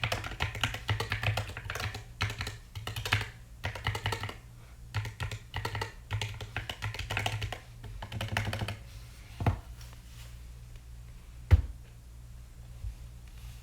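Rapid typing on an EPOMAKER SK64 mechanical keyboard with Gateron optical black linear switches: a dense run of clacking keystrokes. After about nine seconds the typing stops and a few separate knocks follow, one much louder than the rest.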